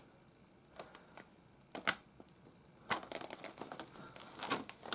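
Handling of a sealed toy box: scattered light clicks and taps, with denser clicking and rustling from about three seconds in.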